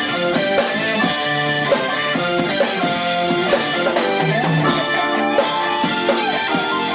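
Jazz-fusion quartet playing live: electric guitar and keyboards over electric bass and drum kit, with a bending, sliding lead note in the middle.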